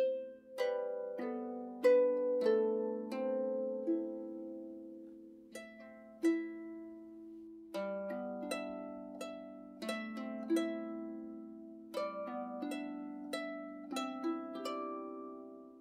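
Celtic harp music: slow, plucked notes that ring on and fade, several overlapping into gentle chords and arpeggios.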